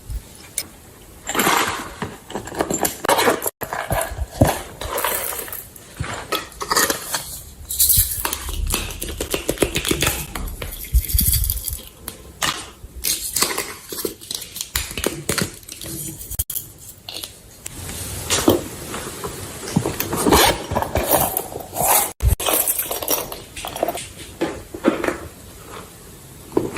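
Slime being handled and mixed: a dense, irregular run of sticky clicks, pops and crackles, with light clinks.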